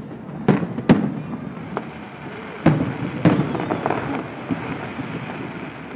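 Aerial firework shells bursting: two quick pairs of loud bangs, one pair near the start and one about halfway through, each bang trailed by a rumbling echo, with a lighter pop between them.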